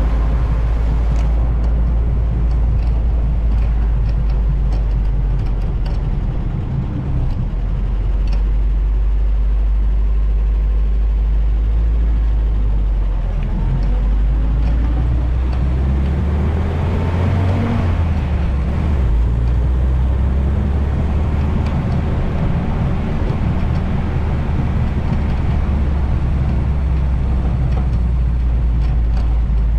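Open vintage Willys Jeep driving, its engine running under a steady heavy low rumble of wind buffeting on a foam-covered GoPro. The engine pitch shifts about halfway through.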